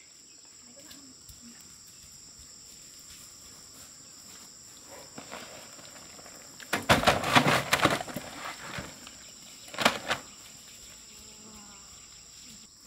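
Steady high-pitched insect drone, broken by a loud noisy burst about seven seconds in and a shorter one about ten seconds in.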